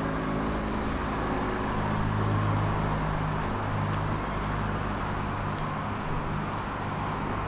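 Tram running along the line: its electric traction motors hum in a few steady low tones over the even rolling noise of wheels on rails.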